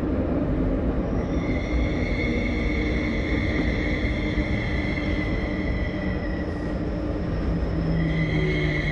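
Subway train running on the rails with a steady heavy rumble. A high-pitched squeal of several tones sets in about a second in, fades around six seconds, and comes back near the end.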